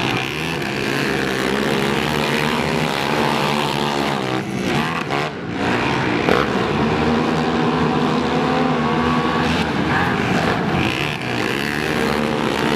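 Several racing quads (ATVs) running hard around a dirt oval together, their engines revving up and down in pitch as they go through the turns.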